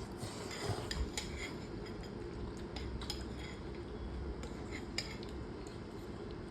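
Spoon or fork clicking and scraping against a bowl of noodles in scattered light clinks while eating, over a steady low hum.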